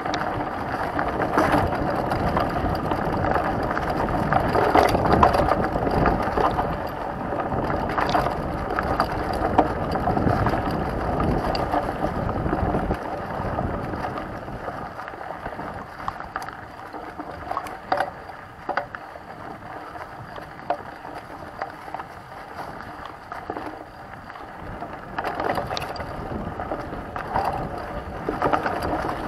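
Mountain bike riding fast over a dirt singletrack: a steady rush of knobby tyres on dirt, with frequent sharp knocks and rattles as the bike hits bumps. Louder and rougher for the first half, quieter through the middle, and rougher again near the end.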